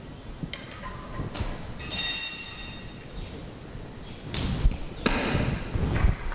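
Knocks and thumps of equipment being handled and set down, several of them in the last two seconds, with a brief hiss about two seconds in.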